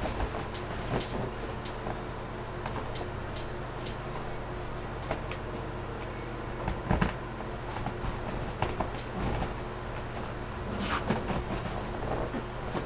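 Scattered creaks and squeaks of a 96-inch latex balloon rubbing and flexing under the weight of a person lying on it, the strongest about halfway through and a cluster near the end, over a steady low hum.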